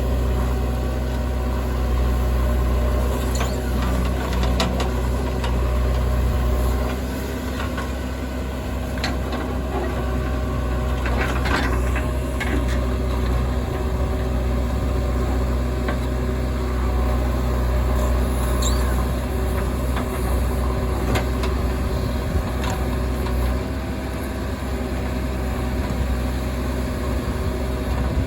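Heavy diesel engine of a JCB 3DX backhoe loader running steadily while it loads mud into a truck, with scattered knocks and clatters through the work.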